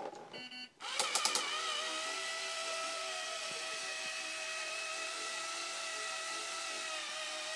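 Battery-powered push-button toy car: a short electronic beep and a few clicks about a second in, then its small electric motor whines steadily at an even pitch as the car drives itself across the carpet.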